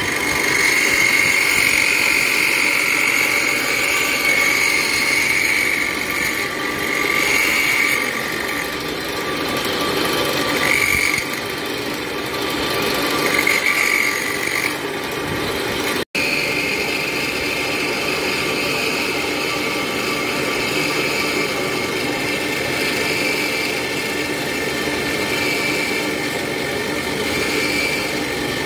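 A tool-post grinder on a lathe grinding the friction face of a truck flywheel: the small grinding wheel's steady high whine over the lathe's running, with the grinding hiss of the wheel on the cast iron. The whine wavers a few times in the first half.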